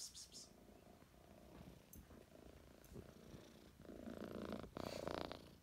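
Domestic cat purring, faint at first and much louder from about four seconds in as the cat comes right up to the microphone, with a brief pause between breaths near the end.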